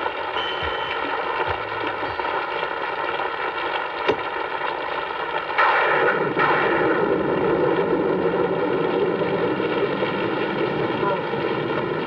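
Two gunshots about a second apart, roughly six seconds in, followed by a steady hiss of rain.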